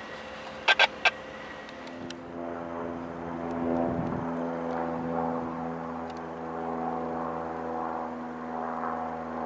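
Diesel locomotive engine running with a steady, many-toned drone as a freight train approaches, swelling a little about four seconds in. Before it comes in, about two seconds in, there is quieter background with three sharp clicks about a second in.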